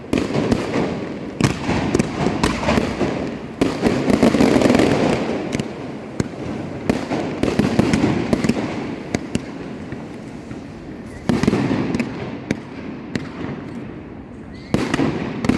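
Large aerial fireworks display (a Valencian pyrotechnic castillo) going off: a dense run of sharp bangs and crackling bursts coming in waves, the heaviest barrage about four seconds in.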